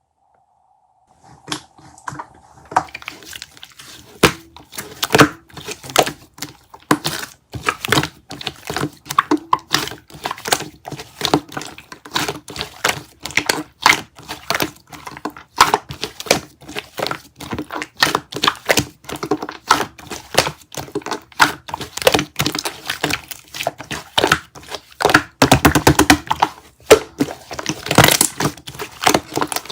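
Shaving foam squeezed and pressed close to the microphone: a dense, irregular run of crisp crackling and squishing crunches, several a second, starting about a second in.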